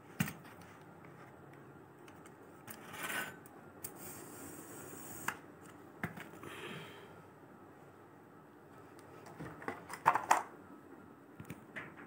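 Vacuum cleaner attachments handled by hand: scattered clicks and taps from the chrome extension tube and plastic hose and nozzle fittings, with brief rustling, and a quick cluster of sharp clicks about ten seconds in.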